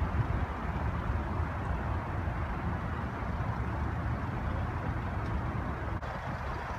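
Helicopter running: a steady low rumble of rotor and turbine noise.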